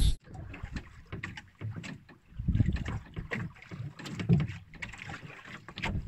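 Hand paddle dipping and splashing in the water beside a small boat, in irregular strokes, with scattered light knocks.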